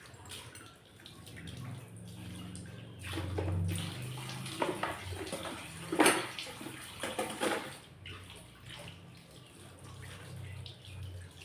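Water running from a tap while things are washed, with several clattering knocks of items being handled; the loudest knock comes about halfway through.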